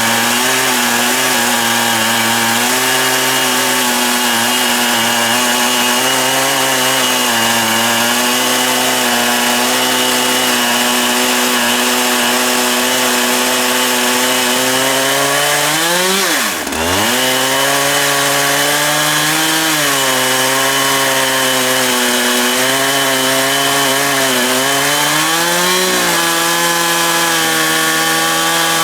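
Husqvarna 365 two-stroke chainsaw running at high revs under load, ripping a log lengthwise in an Alaskan chainsaw mill. The engine note wavers slightly, drops sharply once a little past halfway and picks back up, then dips briefly again near the end.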